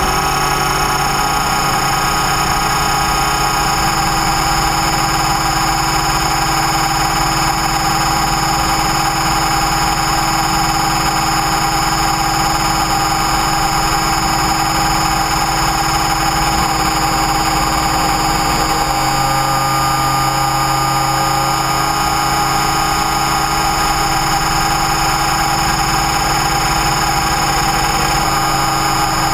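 Align T-Rex 550E electric RC helicopter in flight, heard from its own onboard camera: the electric motor, drive gears and rotors give a steady whine of several held tones over a noisy rush. A lower hum joins about two-thirds of the way through.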